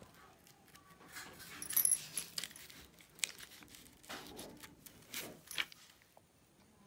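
A striped plastic overlay sheet and the paper pages of a scanimation picture book being slid and handled: scattered short rustles and crinkles with light taps, the loudest about two seconds in.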